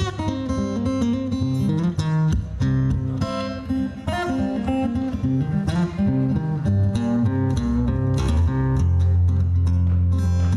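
Guitar music with strummed chords over deep low notes.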